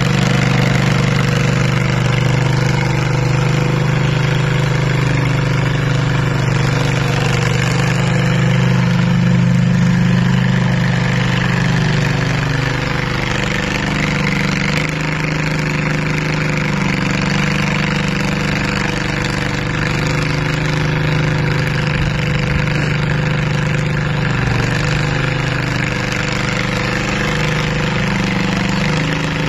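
Small garden tractor's engine running steadily while it pushes snow with a front plow blade, the engine note shifting slightly partway through.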